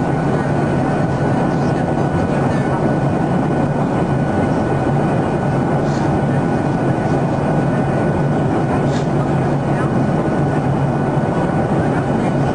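Steady cabin noise of a WestJet Boeing 737 in flight: jet engine and airflow noise heard through the fuselage, with a steady low hum under it.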